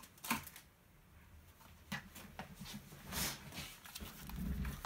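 Hands handling craft supplies on a tabletop: a few light taps, then a swish of a hand sliding over paper a little after three seconds in, and a low rumble of things being moved near the end.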